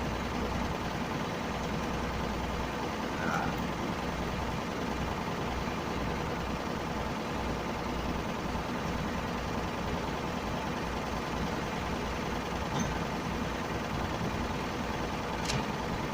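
Steady mechanical hum of an engine running at idle, with a brief sharp click near the end.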